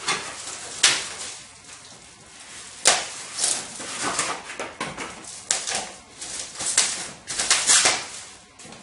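Packing material being cut and pulled off a new boxed road bike by hand: irregular rustling and scraping of wrapping, with a few sharp clicks or snaps.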